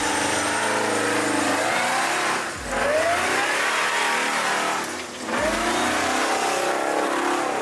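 Jeep engine revving on an off-road trail, its pitch rising and falling, with short dips in loudness about every two and a half seconds.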